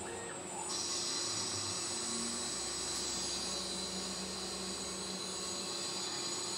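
Homemade CNC mill's spindle running with a one-inch aluminium part in it, turned against a fixed lathe turning tool; under a second in, a steady high-pitched cutting noise joins the spindle's steady hum as the tool cuts into the aluminium.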